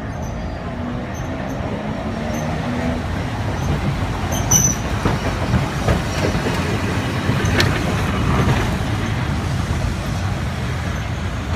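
Vintage electric tram rolling slowly past on street rails: a low rumble of wheels and running gear that swells as it draws close, with a few sharp knocks around the middle.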